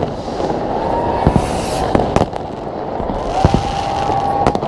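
Fireworks going off: a string of sharp bangs and two hissing bursts over a dense, steady background din.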